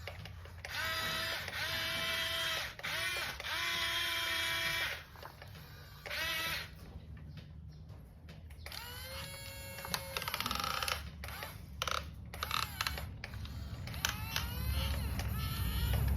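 Small electric motor of a toy construction vehicle whirring in bursts. The first three runs are long and steady, each winding up in pitch as it starts. Later come shorter whirs with clicking from the plastic gears.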